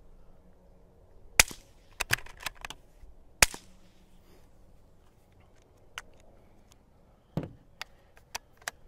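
Two suppressed shots from a .22 LR bolt-action rifle fitted with a GSL Tech Pill Bottle micro suppressor, about two seconds apart, each a short sharp crack. A few lighter clicks come between the shots. Scattered handling clicks and a knock follow in the second half.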